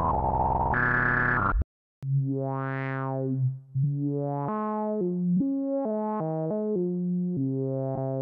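Loops from a Behringer CAT analog synthesizer playing back. First a tone glides up in pitch, jumps higher and cuts off about a second and a half in. After a short gap comes a run of synth notes stepping up and down in pitch every half second or so, which cuts off abruptly.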